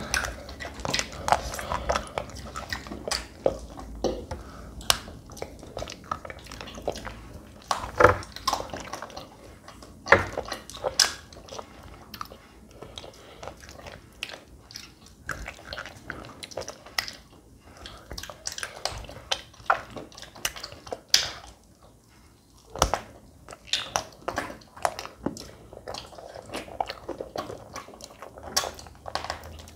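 Two children eating chocolate-coated Magnum ice cream bars: irregular sharp clicks and smacks of biting, licking and chewing.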